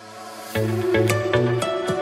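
Electronic background music fading in, with a beat of sharp drum hits and a bass line entering about half a second in.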